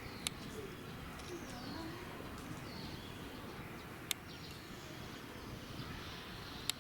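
Birds calling with short falling chirps over a steady outdoor background, broken by three sharp clicks: near the start, in the middle and near the end.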